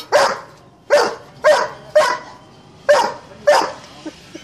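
Doberman barking: six loud, short barks spaced about half a second to a second apart.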